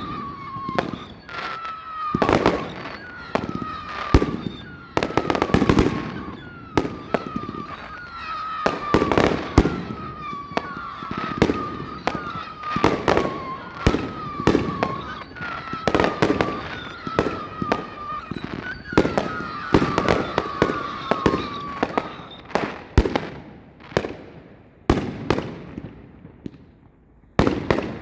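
Fireworks going off in a rapid barrage of sharp bangs and crackles, with short high whistles that fall slightly in pitch repeating about once a second among them. The bangs thin out in the last few seconds.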